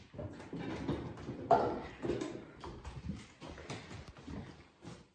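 A run of kitchen knocks and clatters as a saucepan of water and fish is carried to a range cooker and set down on its hotplate. The loudest knock comes about a second and a half in.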